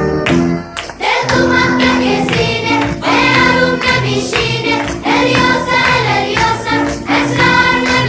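Background music with several voices singing together over instruments, after a short break about a second in.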